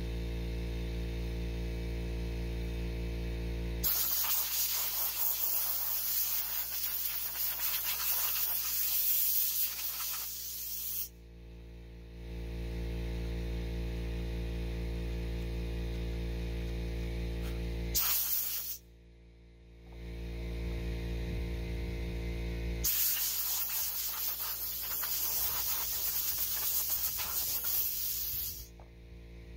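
Compressed air hissing from a blow gun, blowing dust off 3D-printed armour pieces: two long blasts of several seconds with a brief one between them, and a steady low hum in the pauses.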